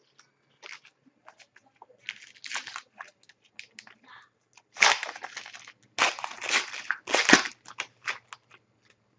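Plastic card-pack wrapper crinkling and crackling in irregular bursts as it is handled, the loudest crackles about five to seven and a half seconds in.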